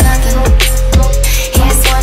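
Loud background music: a beat with a deep held bass and a kick drum about twice a second.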